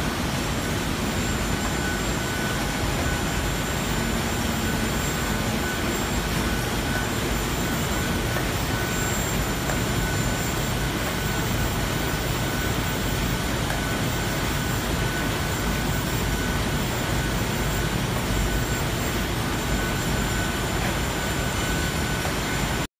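A flat-surface labeling machine and its conveyor running, giving a steady mechanical hum with a faint steady high whine; the sound cuts off suddenly near the end.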